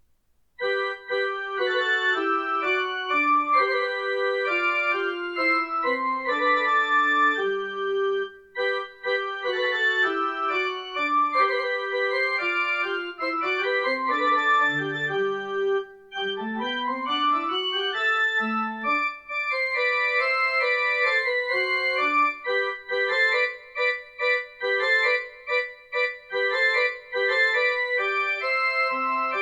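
Instrumental keyboard music played as a piano-like solo of quick runs and chords, with a rising run of notes about halfway through; it starts about half a second in.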